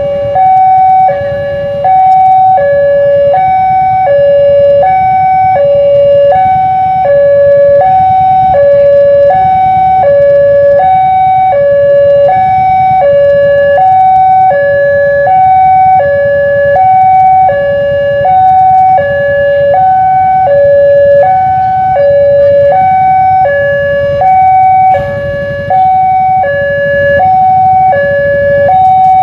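Indonesian railway level-crossing warning alarm sounding its two-tone hi-lo signal, a higher and a lower tone taking turns about once a second, the signal that a train is approaching and the crossing is closed.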